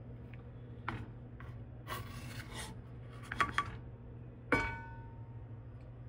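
Spatula scraping and sliding in a cast-iron skillet as a cooked egg is turned out onto a plate, with a few light clicks and one louder clink about four and a half seconds in that rings briefly. A low steady hum runs underneath.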